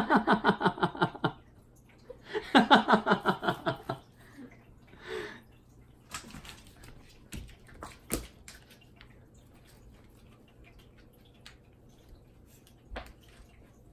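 A person laughing in two bursts of quick, pulsed 'ha-ha-ha', the first ending just over a second in and the second running from about two to four seconds in. After that come scattered soft taps and rustles of a cat and a feather-duster toy on a wooden floor, with a sharp click about eight seconds in.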